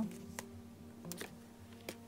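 Quiet background music with a few light clicks as a page of a ring-bound mini album with plastic pocket sleeves is turned.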